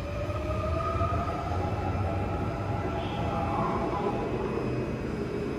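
Seoul Metro Line 2 new-generation electric train accelerating away from the platform. Its traction motor whine rises slowly in pitch over the rumble of wheels on rail, then fades about three or four seconds in.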